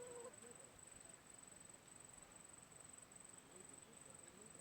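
Near silence with an insect's steady high-pitched trill, pulsing about twice a second.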